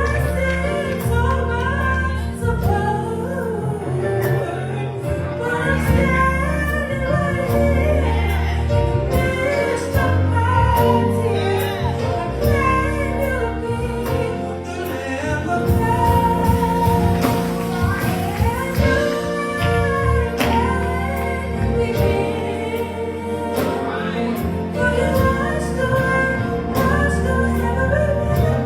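Gospel choir singing with instrumental accompaniment, sung lines over a steady bass.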